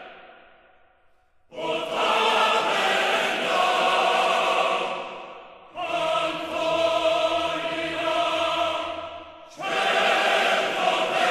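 Choral music: voices holding long sustained chords in three phrases, each coming in suddenly and slowly fading away.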